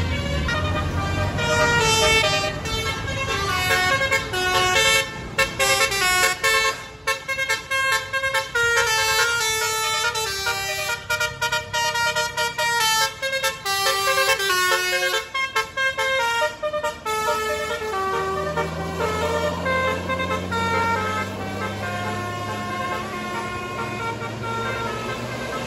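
Tour bus's Basuri multi-tone 'telolet' horn playing a melody of short, stepped notes, cut off and restarted many times in the middle. In the last third the bus's diesel engine comes up under it, its low drone slowly rising in pitch.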